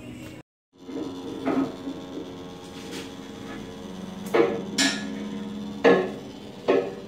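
Hydraulic power unit of a Max Jax two-post car lift running with a steady hum as the lift hoists the car. About five sharp metal clanks come from the lift as it rises, the loudest about four and a half and six seconds in.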